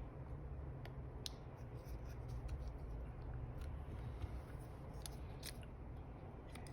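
A few faint, scattered small clicks and ticks of phone parts being handled and pressed into place, over a low steady hum.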